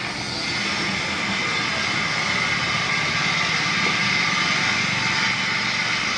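A high-speed electric motor running steadily, a constant whine over a hiss.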